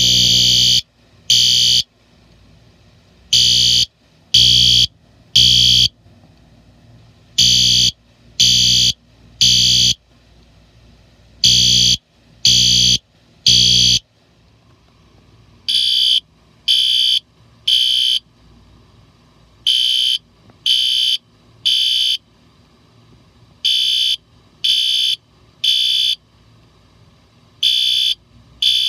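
System Sensor fire alarm horns sounding the temporal-3 evacuation code: three short blasts, a pause, three more. A loud, harsh, full-bodied horn runs for about the first half. About halfway through, a second, quieter and thinner-sounding horn takes over in the same pattern.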